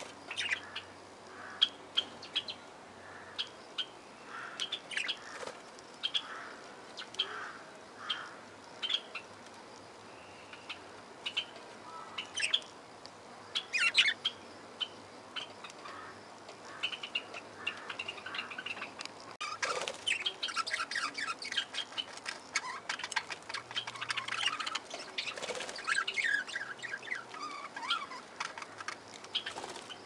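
A flock of budgerigars chirping and warbling, with scattered short chirps at first that thicken into dense, continuous chatter from about two-thirds of the way in. A brief flutter of wings at the very start.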